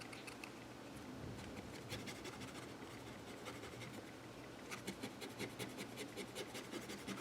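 Light scratching strokes of a tool scraping at softened sticker adhesive, turning about two-thirds in into a quick, regular scrape of about four strokes a second.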